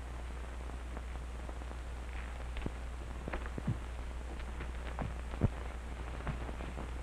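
Background noise of an old 1941 film soundtrack: a steady low hum under hiss, with scattered clicks and pops throughout.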